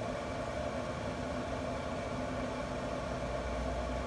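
Steady electric hum of a running pellet grill, its combustion fan motor turning continuously while the grill holds temperature, with a low rumble swelling near the end.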